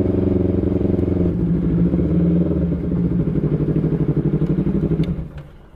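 Motorcycle engine running at low speed through the ride, its note loosening into a slow pulsing beat about three seconds in, then stopping suddenly about five seconds in.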